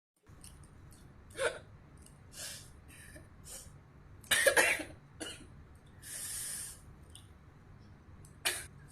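A girl coughing and hiccuping in short, separate bursts with breaths between them. The loudest cluster comes about halfway through.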